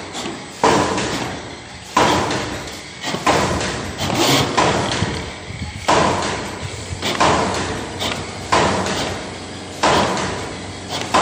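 Biscuit forming machine clanking in a steady working cycle, one metallic knock about every second and a quarter, each ringing briefly.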